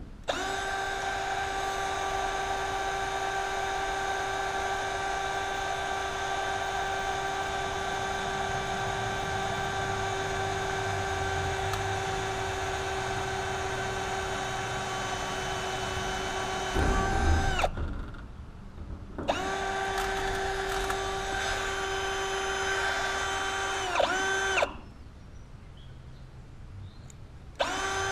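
Handheld power drill running at a steady speed, held against the bus's sheet-metal side. It runs long and unbroken, winds down and stops about 17 seconds in, starts again a moment later, winds down and stops again about 25 seconds in, then starts once more near the end.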